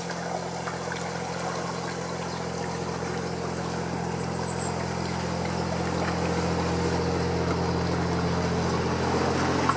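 Narrowboat's inboard diesel engine running steadily at low speed, growing gradually louder as the boat approaches and passes close by. Faint bird chirps twice.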